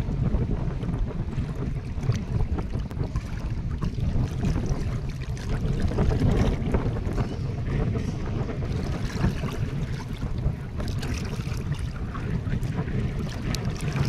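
Wind buffeting the microphone outdoors by the sea: a low, gusting rumble that rises and falls constantly, with no pitch to it.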